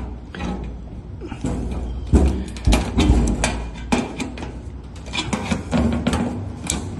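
Irregular metal clanks and knocks, one after another, from hand work on the air handler's parts.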